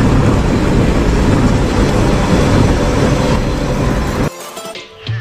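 Steady road and engine noise heard from inside a bus moving at highway speed. It cuts off abruptly about four seconds in, leaving a brief quieter stretch with faint tones.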